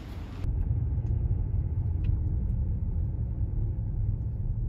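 Steady low road and engine rumble inside the cabin of a car being driven. A brief hiss is cut off about half a second in.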